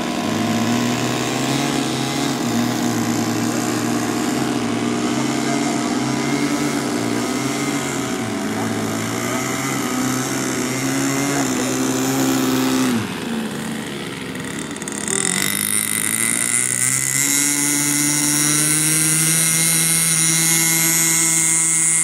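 Small model airplane engines running in flight, several notes overlapping and shifting in pitch. The sound drops briefly about 13 seconds in, then a steadier engine note slowly rises.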